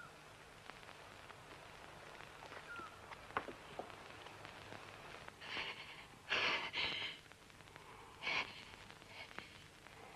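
A woman's sharp, frightened gasps: a few short intakes of breath over a couple of seconds, the loudest in the middle, over faint scattered clicks.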